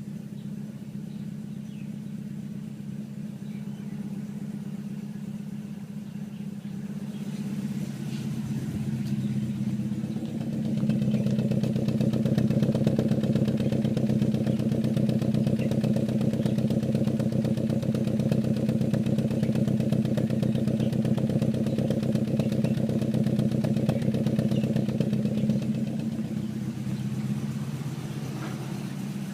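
Proton Waja's 1.6-litre four-cylinder Campro CPS engine, fitted with Matspeed high-lift camshafts, running steadily at a near-constant speed. It grows louder about eight to eleven seconds in, stays loud, and eases back near the end.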